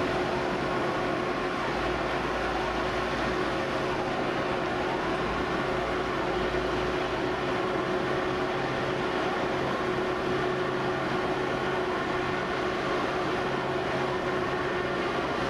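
Fire engine's motor running its water pump at steady revs: an even drone with a held tone, unchanging throughout.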